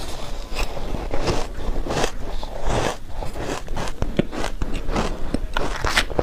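Close-miked biting and chewing of soft shaved ice: a dense, irregular run of crisp crunches and crackles.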